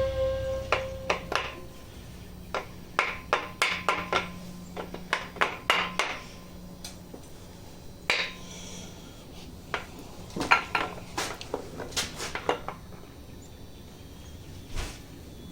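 Metal engine parts of a Chevy LS 5.3 V8 clinking and knocking as it is taken apart by hand: a string of sharp taps and clinks, irregularly spaced, some in quick runs of several.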